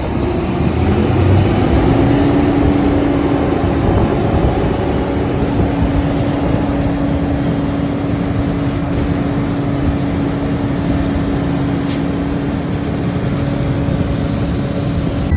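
A vehicle or machine engine running steadily: a constant hum over a loud rushing noise, with no change in speed.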